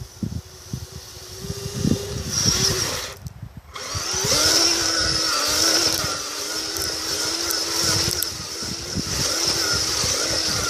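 Kyosho Blizzard FR RC tracked vehicle's electric motor and drivetrain whining as it drives. The whine cuts out for a moment about three seconds in, then comes back louder and holds steady.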